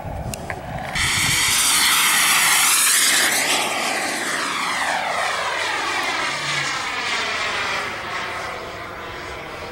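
Kingtech K60 turbine of an HSD Super Viper RC jet making a flyby: a loud jet hiss that swells sharply about a second in, then drops in pitch as the jet passes and fades as it climbs away.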